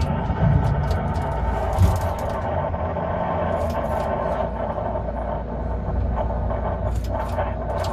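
Steady low rumble inside a tower crane cab, with a constant hum and a few scattered light clicks and knocks.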